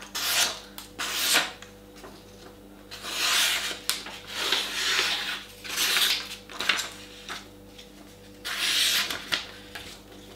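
Freshly sharpened kitchen knife slicing through a sheet of paper: about half a dozen short papery hissing strokes with pauses between them. The cuts come from a smooth, clean paper-cutting test of the edge just put on with water stones.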